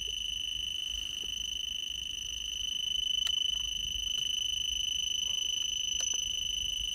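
Radex RD1706 radiation dosimeter beeping nonstop, a rapid high-pitched stream of pulses. It is signalling a very high dose rate of about 155 microsieverts from the radioactive tracer injected into the body for a PET scan.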